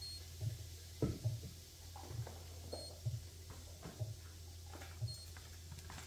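Dishwasher control panel giving three faint short high beeps, about two and a half seconds apart, as the hot cycle is set. Under them run a low steady hum and soft low thumps a little less than once a second.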